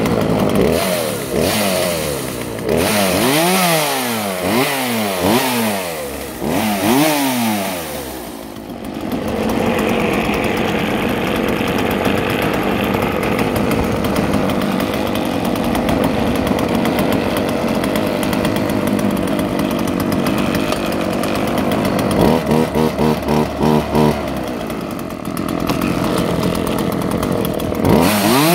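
Freshly rebuilt Husqvarna 36 two-stroke chainsaw running: it is revved up and dropped back about five times in quick succession, then settles to a steady idle. Later it stutters briefly in a regular pulse, and near the end it is revved again.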